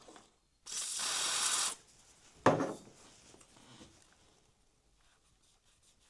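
A steady rubbing of about a second while the wheels of a model railway locomotive are cleaned, followed about a second later by one sharp knock, then near silence.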